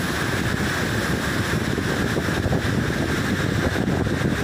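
Muddy floodwater torrent rushing down a hillside: a loud, steady rush of water, with wind buffeting the microphone.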